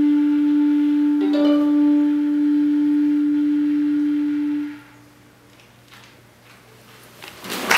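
Clarinet and viola holding the final chord of a duet, a long low note with a short higher note entering about a second in, dying away just before five seconds in. After a quiet pause, audience applause begins at the very end.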